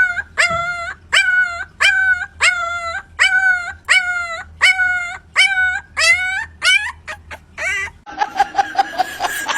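A dog giving a long run of high-pitched yips, about two a second, each call bending in pitch. The yipping stops about eight seconds in, and a different sound with a steady high tone follows.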